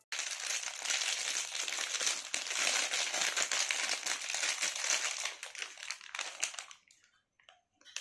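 Clear plastic wrap crinkling as it is pulled and peeled off a frozen keypad phone, dense and continuous, thinning to a few scattered crackles after about five and a half seconds.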